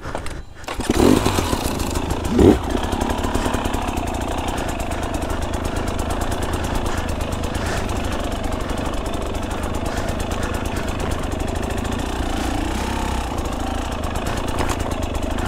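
Dirt bike engine starting about a second in, revved briefly about a second and a half later, then idling steadily.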